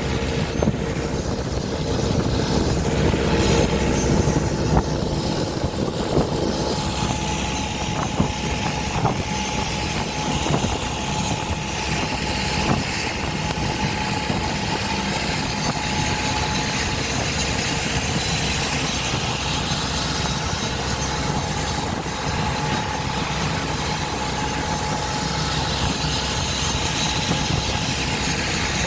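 Boat engine running steadily, a constant low rumble with a faint steady whine above it.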